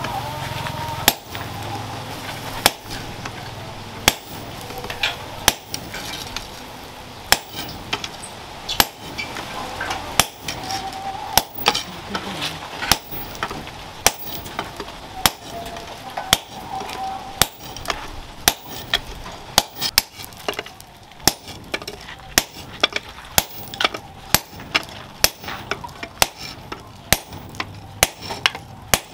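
Hammer blows on red-hot leaf-spring steel held with tongs on a steel anvil, forging out a long knife blade. The strikes come about a second apart at first and quicken to about two a second in the second half.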